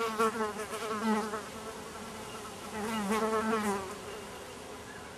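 A flying insect buzzing close to the microphone, twice: once at the start and again about three seconds in, its pitch wavering as it moves.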